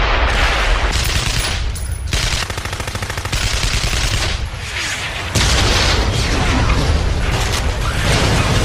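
Battle sounds: continuous gunfire with rapid machine-gun bursts over a steady low rumble.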